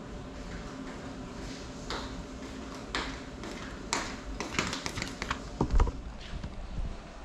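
Taps and knocks close to the drone's camera, coming faster and louder about halfway through, over a steady low hum: a person walking up to the upturned FPV drone and picking it up by hand.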